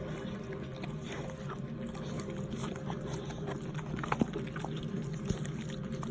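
Pit bull mother licking her newborn puppy's face: wet licking sounds with a few sharp clicks, the clearest about four and five seconds in, over a steady low hum.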